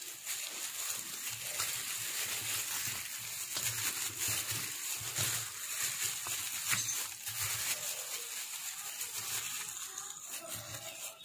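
Hand in a plastic glove mixing raw chicken wings with dry spices in a stainless steel bowl: wet squishing of the meat and crinkling of the glove, continuous and uneven.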